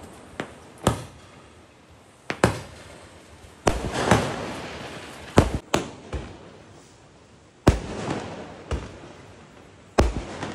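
Firecrackers and aerial fireworks going off: about a dozen sharp bangs at uneven intervals, some in quick pairs, each trailing off in a long echo.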